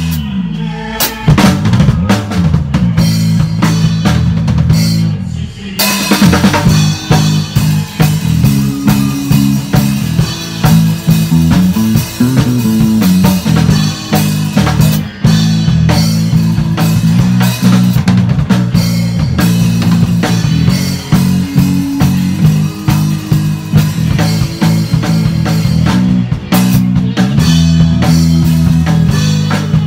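A five-string electric bass and an acoustic drum kit playing a song together. The bass holds steady low notes while the drums keep the beat on kick and snare. About six seconds in, a cymbal crash comes in and the drums play fuller, with more cymbals.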